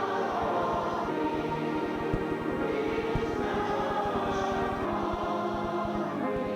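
A church congregation singing together in worship, many voices holding long notes in a wordless, chant-like swell, heard on an old VHS tape recording.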